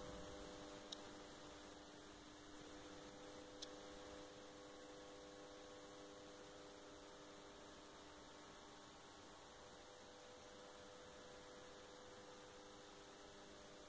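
Near silence: room tone with a faint steady hum, and two light clicks in the first few seconds.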